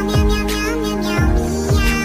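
Electronic background music: sustained synth chords over a deep, repeated kick-drum beat, with gliding melodic lines.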